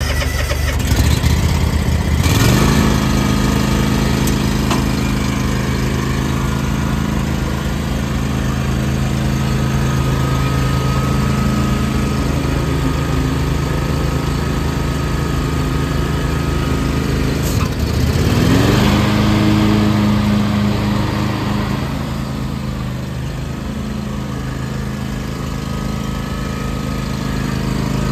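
John Deere X310 lawn tractor's engine running steadily. About two seconds in it is throttled up, its pitch rising to a higher steady speed. A little past the middle it dips briefly, then climbs back up.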